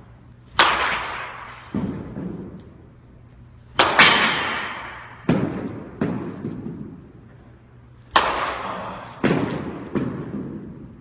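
Bat striking a ball three times, a few seconds apart, each sharp crack echoing in a hard-walled batting cage, with a softer knock about a second after each hit.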